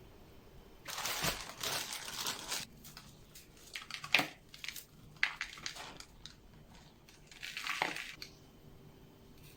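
Household handling noises: a stretch of rustling and crinkling, then a few sharp clicks and knocks, then a second brief rustle near the end.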